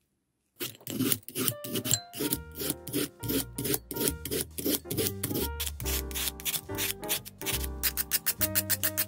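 A handheld julienne peeler scraping down a peeled raw potato stroke after stroke, shaving it into thin strips: quick rasping strokes that come faster near the end, with light background music.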